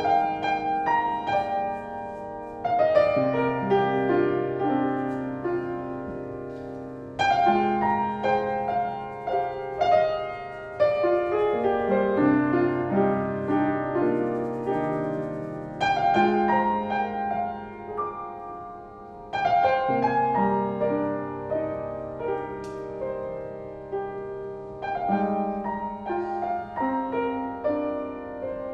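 Yamaha upright piano played solo at a slow pace: a new chord is struck every few seconds and left to ring over held low notes.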